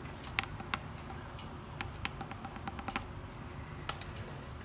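A handful of sharp, light clicks and taps from the plastic oil funnel and dipstick being handled and lifted out of a motorcycle's oil filler neck, over a steady low hum.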